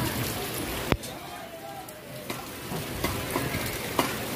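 Steady hiss of heavy rain, which drops off suddenly about a second in and carries on fainter, with a few sharp knocks scattered through it.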